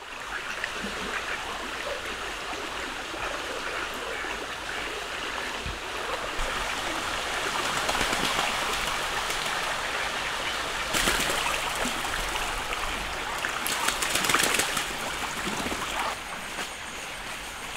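Shallow stream running steadily over stones, with mallard ducks splashing and paddling in the water; two louder bursts of splashing in the second half.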